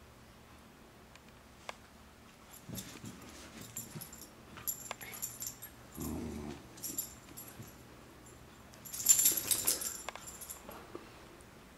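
Border Collie puppy and kitten play-wrestling on a rug: scattered rustling and scratching scuffles, a short low growl from the puppy about six seconds in, and the loudest burst of scuffling a little after nine seconds.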